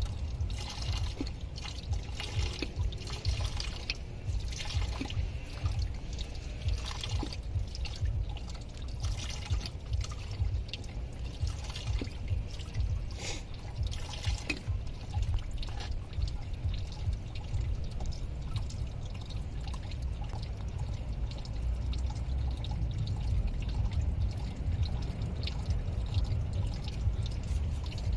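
Engine coolant trickling and splashing out of the opened radiator drain petcock of a 2003 Camry in irregular drips and pours, over a steady low rumble of outdoor city background noise.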